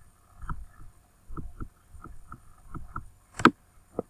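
Computer mouse clicking: a string of faint, irregular clicks and taps, then one sharp, loud click about three and a half seconds in and another just before the end.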